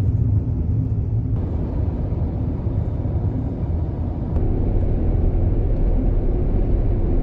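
Steady low rumble of engine and tyre noise heard inside a moving Suzuki Hustler kei car, growing a little louder about four seconds in.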